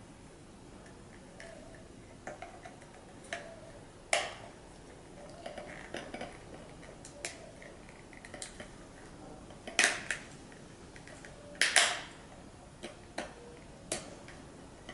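Plastic housing, diaphragm and front cover of an Aqualung Calypso regulator second stage being handled and pressed together during reassembly: scattered light clicks and knocks, with sharper snaps about four, ten and twelve seconds in.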